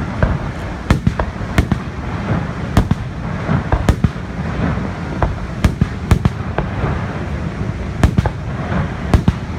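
Fireworks display: aerial shells going off in an irregular string of sharp bangs, sometimes two or three close together, over a steady low rumble.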